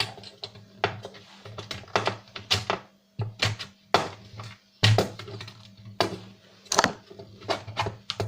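Irregular clicks, taps and knocks of a half-dismantled DVD player's metal chassis, plastic parts and circuit board being handled, over a steady low hum.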